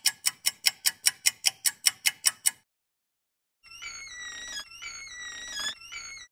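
Quick, even ticking, about five clicks a second, that stops after a couple of seconds. After a pause of about a second comes a sustained electronic-sounding tone that steps between pitches, breaks briefly twice and cuts off suddenly. Both are sound effects dubbed over a stop-motion animation.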